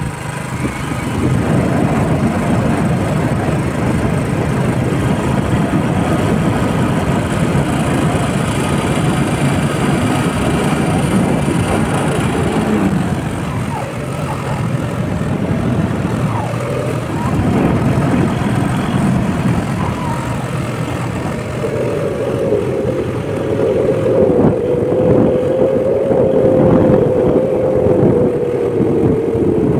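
Motorcycle riding along at speed, wind buffeting the bike-mounted microphone loudly. In the second half a steady engine note comes through and sinks slightly in pitch near the end.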